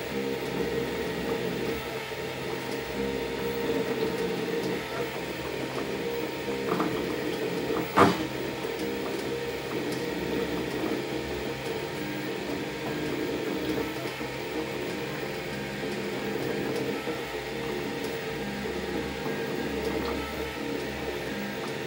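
Velleman Vertex K8400 3D printer printing: its stepper motors whir in short runs that keep changing pitch as the print head moves, over a steady fan hiss. A single sharp knock comes about eight seconds in.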